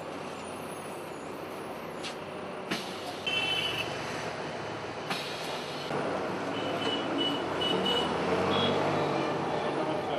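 City bus running, heard from inside the passenger cabin: a steady engine and road rumble that grows louder about halfway through. There are a few sharp clicks, and several short high beeps come once early on and then in a run of repeats.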